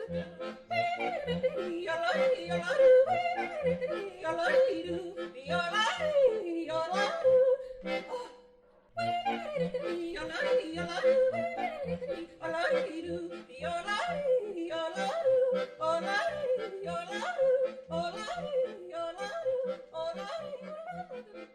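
A yodeling song with instrumental backing: a sung melody leaps and glides over a steady held tone and a regular low beat. The music breaks off briefly about eight seconds in, then carries on.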